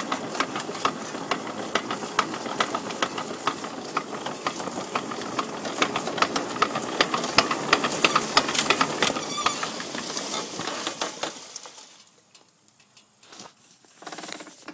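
The front driveline of a 2000 Yamaha Big Bear 400 ATV clattering with rapid, irregular knocks while it spins freely, over the engine running. This is a knock the owner finds only when the driveline is not under load; he has ruled out the U-joints, the ring gear teeth and the diff fluid. The clatter dies away about three-quarters of the way through.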